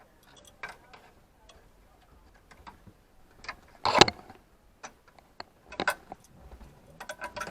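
Irregular metal clicks and knocks of an adjustable spanner working the alternator mounting bolt on an inboard marine engine. The loudest knock comes about four seconds in.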